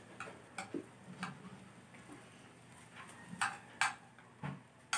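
A spoon clicking and tapping against a plate during eating, about seven short, irregular clicks, the sharpest near the end.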